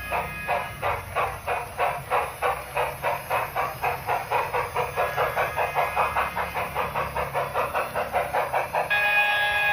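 Big Boy model steam locomotive's sound effects: steam exhaust chuffing in a steady rhythm of about four chuffs a second as it pulls a freight train, with a chime steam whistle blowing near the end.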